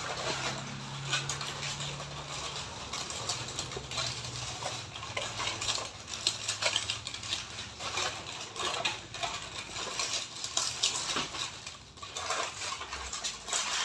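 Irregular small wet clicks and crackles of a betel quid (betel leaf, lime, gambir and tobacco) being chewed.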